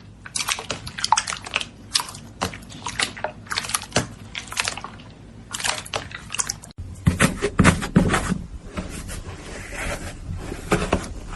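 Slime being squeezed and kneaded: irregular wet, crackly pops and clicks, fuller and louder in the second half.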